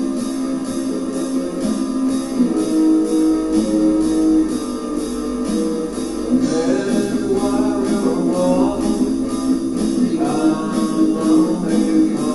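Black metal demo recording: sustained guitar chords over a steady drumbeat of about two to three hits a second, with a singing voice coming in about halfway through.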